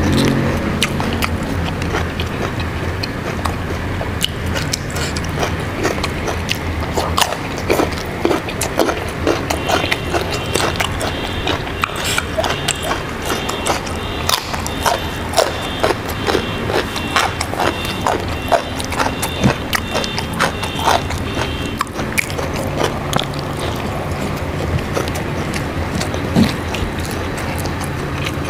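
Close-miked chewing and crunching of raw vegetables such as young jengkol, many sharp crunches at an uneven pace over a steady low hum.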